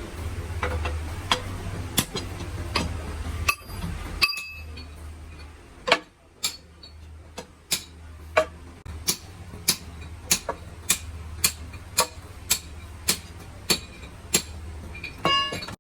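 A hammer tapping on metal gearbox parts: sharp, ringing strikes, irregular at first, then settling into a steady rhythm of just under two a second, over a low steady hum. A short metallic clink and rattle comes near the end.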